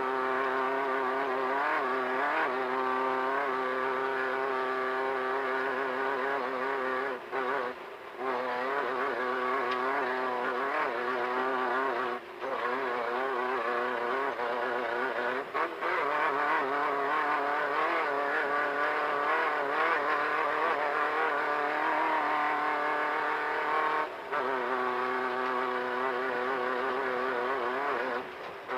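Off-road desert race car's engine running hard at speed, its pitch wavering up and down with the throttle. The engine note briefly drops out several times, about five short dips.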